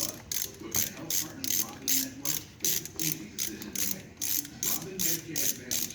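A hand ratchet wrench clicking steadily, about three clicks a second, as a fastener on the carburetor is turned out.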